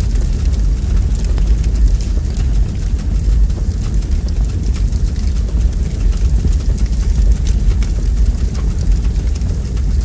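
Wood logs burning in a fireplace: a steady low rumble of flames with frequent small, sharp crackles and pops.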